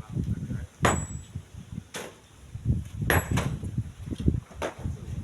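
Strong wind buffeting the microphone in uneven low gusts, with about five sharp knocks scattered through, two of them close together in the middle.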